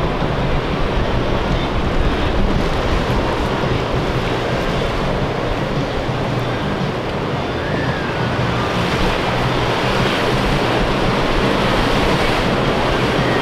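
Ocean surf with wind buffeting the microphone: a steady, even wash of noise with a rumbling low end.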